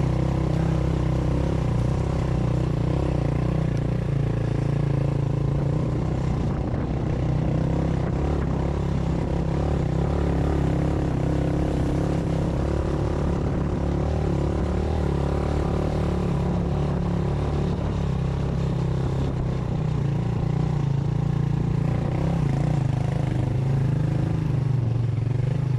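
Motorcycle engine running steadily with a low, even hum, as at a constant cruising speed.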